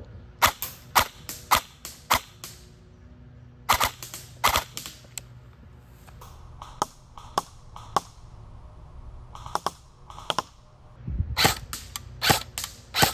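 Airsoft rifle fire with BBs cracking against a wooden board: sharp single cracks in about five quick strings of several shots each, a few shots a second, with short pauses between strings.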